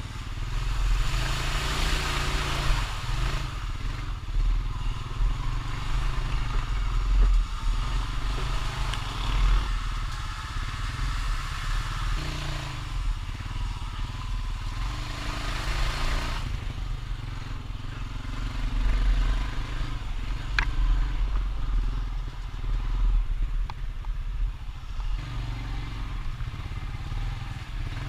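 Honda Rancher ATV's single-cylinder four-stroke engine running and revving while riding, with a heavy low rumble. There are stretches of louder hissing noise about two seconds in and again from about thirteen to sixteen seconds.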